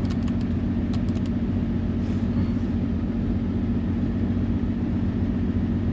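2009 Honda Odyssey's V6 engine idling steadily with a misfire on one cylinder, which the scan tool has picked up. A few light clicks come in the first second or so.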